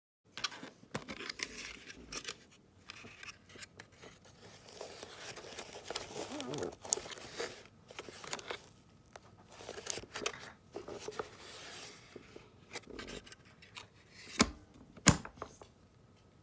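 A newly bought Panasonic vacuum cleaner being unpacked and handled: irregular rustling, scraping and clicking of its packaging and plastic parts, with two sharp knocks about a second apart near the end. The vacuum's motor is not running.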